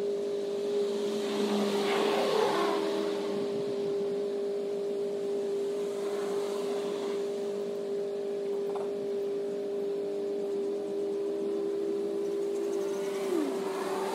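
A steady motor-like hum holding one pitch, with a brief swell of louder noise about two seconds in.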